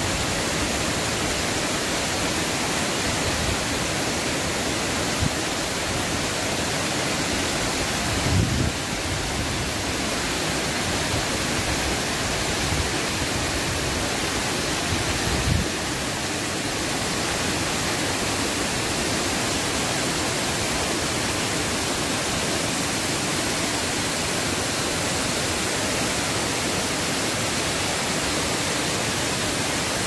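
Tumpak Sewu waterfall: falling water making a steady, even rush of noise. A couple of brief low bumps come about eight and fifteen seconds in.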